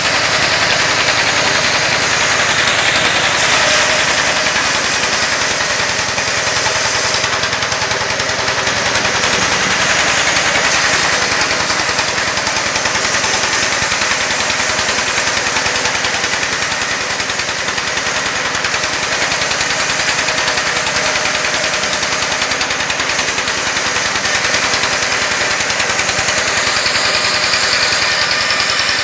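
Stationary engine with a large flywheel running steadily with a regular knocking pulse, driving a wood band saw by belt with the saw not yet cutting.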